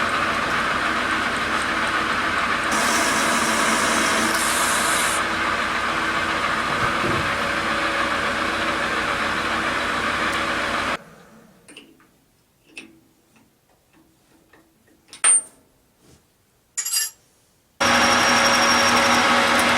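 Metal lathe running with a steady hum while turning an aluminium pulley in a 4-jaw chuck, with a higher hiss for a couple of seconds near the start. About halfway through the running noise cuts off sharply, leaving a few small clicks and knocks, then the lathe noise starts again suddenly near the end.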